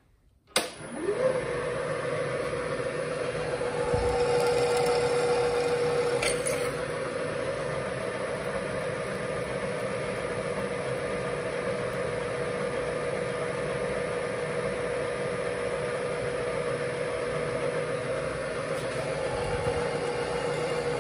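Milling machine switched on with a click, its spindle whining up to speed within about a second, then running steadily while a twist drill bores into a steel plate held in the vise. The drilling is loudest from about four to six and a half seconds in.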